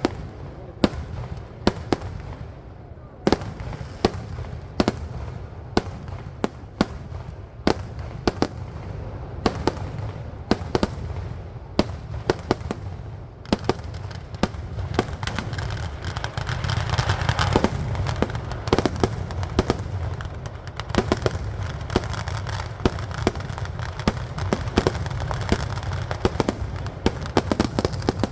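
Festival fireworks (vedikkettu): sharp firecracker bangs, spaced out at first, then from about halfway through a dense rattle of rapid cracks over a continuous crackle.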